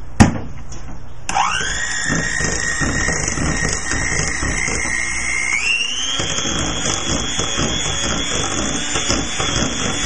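A click, then about a second later an electric mixer's motor spins up with a quickly rising whine and runs steadily. A little past halfway it steps up to a higher speed and holds there.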